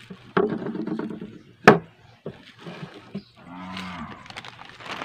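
A cow mooing twice: a longer moo near the start and a shorter one about three and a half seconds in. A sharp knock about a second and a half in comes from the metal chainsaw guide bar being set down on the wooden table.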